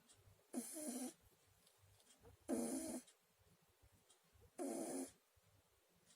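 Sleeping cat snoring: three snores, each about half a second long, coming about two seconds apart.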